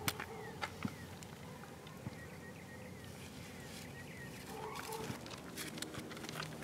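Faint outdoor ambience: repeated short bird chirps and scattered light clicks, with a brief animal call at the start and again about four and a half seconds in.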